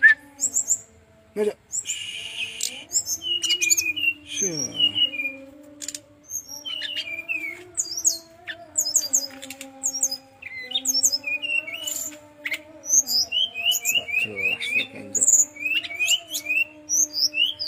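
Brown-chested jungle flycatcher singing a fast, varied run of short high chirps and trills, with a brief rasping note about two seconds in and a quick series of rising notes about three quarters of the way through.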